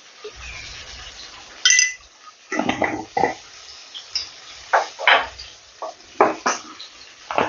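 Steel kitchen utensils clinking and knocking: a bright ringing metal clink about two seconds in, then a run of irregular knocks and clatters.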